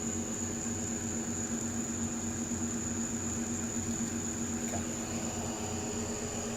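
A vehicle engine idling with a steady hum, under a constant high-pitched whine.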